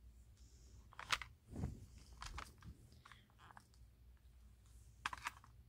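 Faint handling noise: scattered rustles and light clicks, with a slightly louder cluster near the end, as a toy pistol and a plush toy are moved about.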